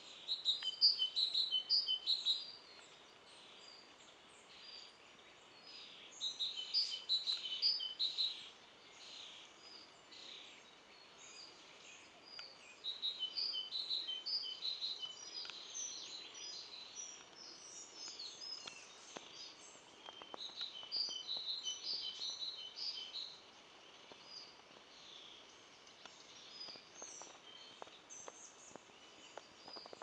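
Songbirds singing: high chirping phrases in bouts of a couple of seconds that come back every few seconds, over a faint steady background hiss.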